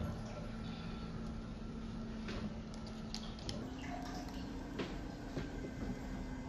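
Fresenius 5008S haemodialysis machine running during its T1 self-test: a steady hum with faint liquid sounds from its hydraulics. The hum steps up slightly in pitch about halfway through, and a few small plastic clicks come as the dialyzer and the blood-pump door are handled.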